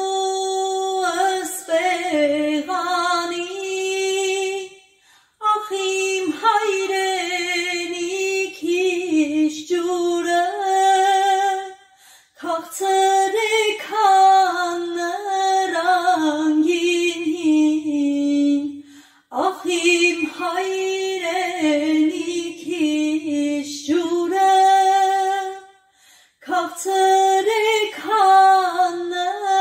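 A woman singing an Armenian song unaccompanied, in long sustained phrases of about six seconds, each followed by a short break for breath.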